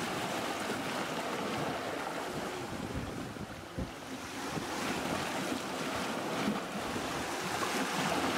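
Sea water rushing past a sailboat's hull as it sails at about nine and a half knots, with wind buffeting the microphone. Two low thuds come a little over three seconds in.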